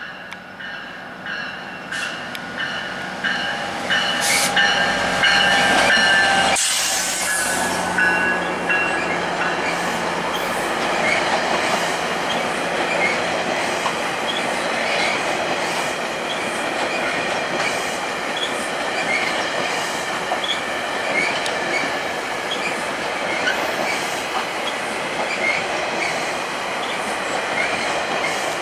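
A GO Transit MP40PH-3C diesel locomotive approaches and passes close by about six seconds in, with steady high-pitched wheel squeal as it comes in. A long string of bilevel passenger coaches then rolls past with steady wheel-on-rail noise and light rhythmic clicks over the rail joints.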